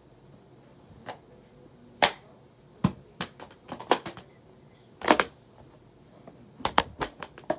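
A series of sharp, irregular clicks and knocks, about a dozen, with the loudest about two and five seconds in and a quick cluster near the end.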